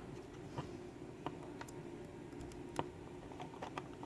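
Scattered small metallic clicks and ticks of a tool working at the retaining clip on a pin-tumbler lock cylinder to pry it out, the sharpest click a little under three seconds in.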